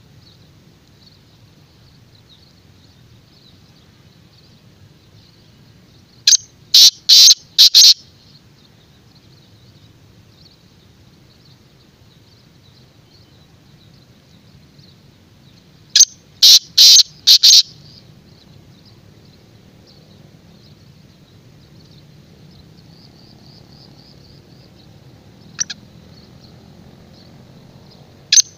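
Black francolin calling: two loud phrases of about five sharp notes each, lasting about a second and a half and some ten seconds apart. A single short note follows later, and a third phrase begins at the very end.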